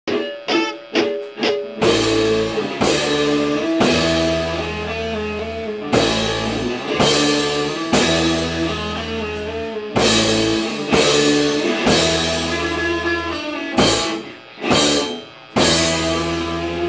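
Punk rock band playing a song's instrumental intro live on electric guitar and drums. It opens with a few short, sharp hits, then the full band comes in with steady drum beats about once a second, and it breaks off briefly twice near the end.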